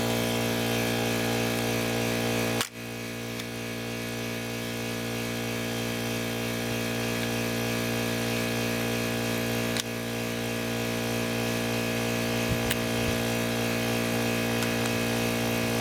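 Air compressor motor running with a steady hum, dropping out briefly about two and a half seconds in.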